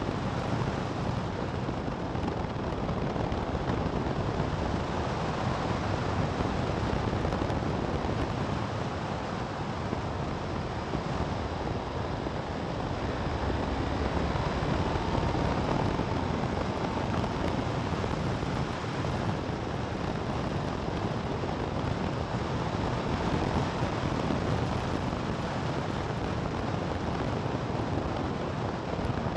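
Steady wind rush on the microphone mixed with the running and tyre noise of a motorcycle riding at road speed, about 50 to 75 km/h, through curves.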